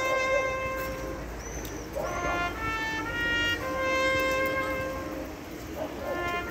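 Trumpet playing the hejnał, the town's bugle call: a slow melody of long held notes, each about a second, with short breaks between them.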